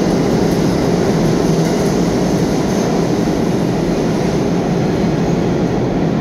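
R211A subway train running through the tunnel on the express track past the station without stopping: a loud, steady rumble of wheels on rail.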